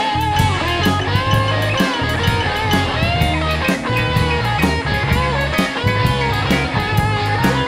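Instrumental blues-rock recording: electric guitar playing sliding, bent notes over bass guitar and drum kit.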